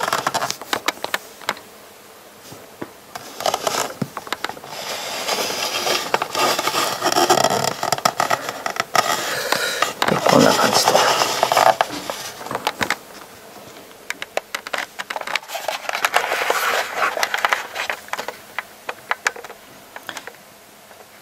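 Hands handling a metal-and-plastic action figure on its display stand: a scatter of small clicks and taps from its joints and parts, with stretches of scraping and rustling handling noise.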